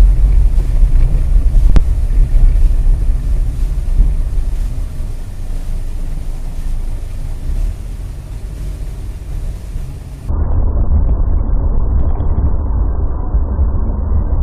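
Steady low rumble of a car driving on a snow-covered road, picked up by a dash camera's microphone inside the cabin: engine and tyre noise with a wind-like hiss. About ten seconds in it cuts abruptly to another dash-cam recording, where the rumble sounds duller and muffled.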